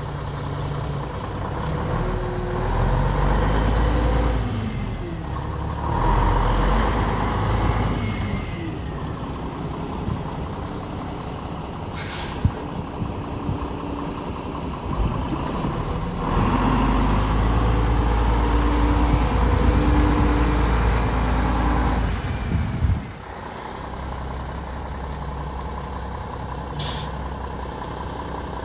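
1996 Mack CH613's E7 inline-six diesel engine pulling the truck tractor, revving up and easing off several times as it drives and shifts, with the throttle dropping off sharply about two-thirds of the way through. Two short air-brake hisses come about twelve seconds in and again near the end.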